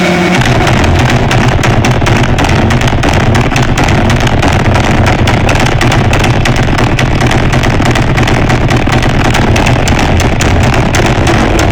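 Loud, harsh distorted noise music: rapid clattering hits over a heavy low drone that comes in about half a second in.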